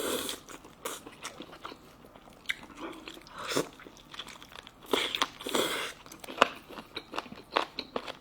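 A person chewing and biting into salt-baked chicken close to the microphone: wet clicks of the mouth and small crunches at an uneven pace, with a few louder bites about three and a half seconds in and again around five to six seconds in.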